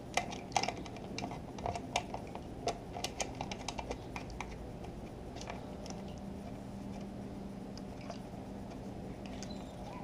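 Quick light clicks and taps of a motorcycle's plastic coolant reservoir tank being handled and worked into place against the bike's frame and wiring. They are busy for the first four seconds or so, then thin out, leaving a faint steady low hum.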